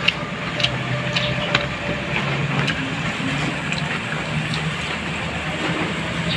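Close-up eating by hand: scattered short wet mouth clicks and chewing sounds over a steady low hum and hiss.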